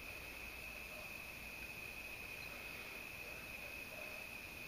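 Crickets trilling, one steady high-pitched tone that does not break. The hand-turned tap cutting threads makes no distinct sound over it.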